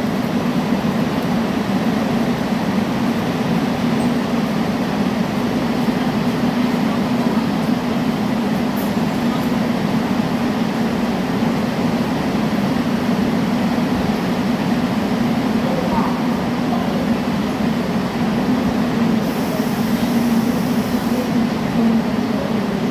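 Donghae Line commuter electric train standing at the platform with its doors open, giving a steady low hum from its running equipment. A faint hiss comes in briefly near the end.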